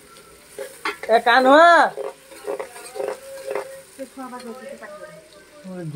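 Onions frying in oil in a metal pan over a wood fire, sizzling, with several sharp clicks as the pan is stirred. About a second in, a loud voice-like call rises and falls.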